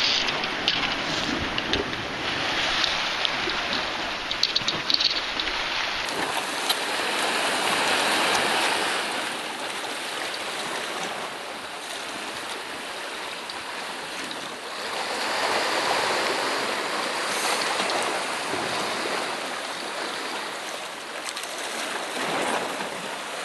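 Sea surf washing against a rocky shore, a steady rush of water that swells and eases, with some wind on the microphone.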